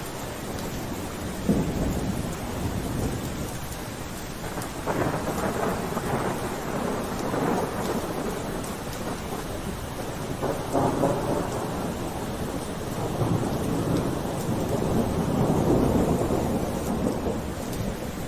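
Steady rain falling, with rolls of thunder that swell and fade several times.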